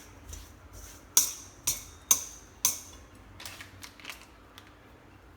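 Kitchen utensils clicking against a bowl while sliced pig ear is tossed with roasted rice powder. Four sharp clicks come within about two seconds, then a few fainter ones.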